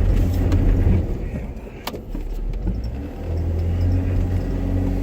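Off-road vehicle engine working hard at low speed as it climbs over rocks, the drone rising twice in surges of throttle. A single sharp knock sounds about two seconds in.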